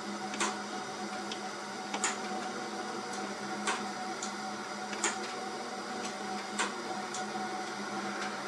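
Garage door opener motor humming steadily while stalled and failing to turn, with a short click about every one and a half seconds. The motor will not start even with a new start capacitor; the owner finds the motor itself is bad.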